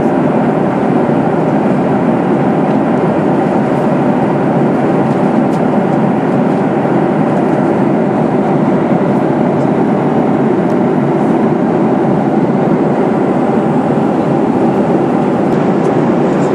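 Steady cabin noise of a Boeing 737-800 in flight, heard from inside the passenger cabin: the even drone of its CFM56 jet engines blended with the rush of air over the fuselage.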